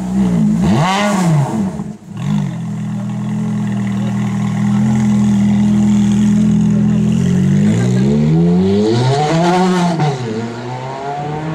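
Ferrari F430's V8 exhaust: a quick rev blip near the start, then the engine held at a steady note for a few seconds before accelerating away. The pitch climbs, drops at an upshift, and climbs again near the end.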